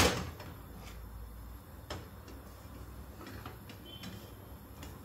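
Frying pan set down onto a gas hob's metal pan support with a sharp knock, followed by a low steady background hiss of the pancake frying and a few light clicks.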